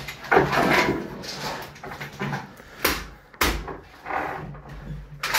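Handling noise of gear being moved about: rustling and clatter, with a couple of sharp knocks about three seconds in.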